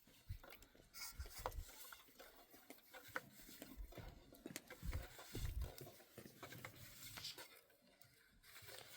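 Faint handling noise: scattered light clicks and taps, with a few soft low thumps about five seconds in.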